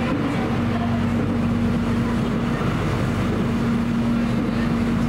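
Airport rail link electric train running at speed, heard inside the passenger car: a steady rumble of wheels on the track with a constant low hum.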